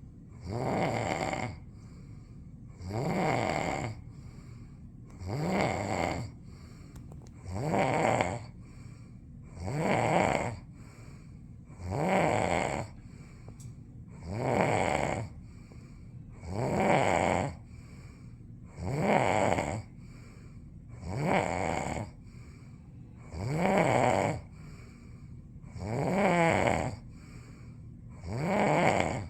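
Snoring in a steady rhythm, one loud snore about every two seconds, each rising and then falling in pitch.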